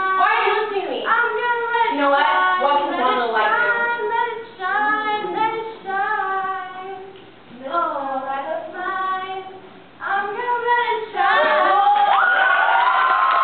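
A small group of girls singing unaccompanied, phrase by phrase with short pauses between lines. Near the end a long held high note takes over.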